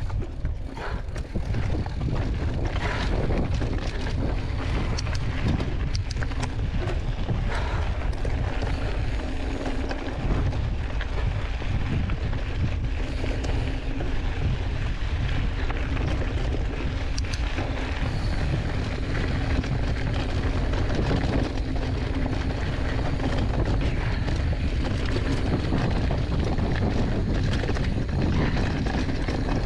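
Wind buffeting the microphone of a chest-mounted GoPro on a moving mountain bike, over tyres rolling on dirt and loose gravel. Scattered clicks and rattles come from the Giant Fathom 2 hardtail's frame and drivetrain over the rough trail.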